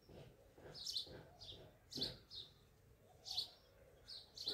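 Faint birds chirping, a string of short high chirps every half second or so, with soft scrapes and a couple of light knocks from a silicone spatula stirring liquid in a glass bowl.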